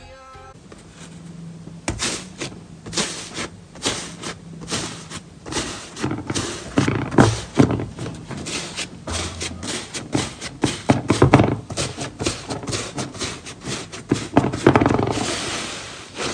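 Slime being squeezed and worked by hand: a quick, irregular run of wet clicks and pops that thickens into a denser crackle near the end.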